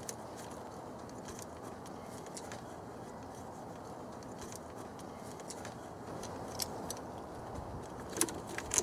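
Faint metallic clicks of a small wrench working the nut of a car battery's positive terminal clamp to take the cable off, over a steady low background noise. A few sharper clicks come near the end.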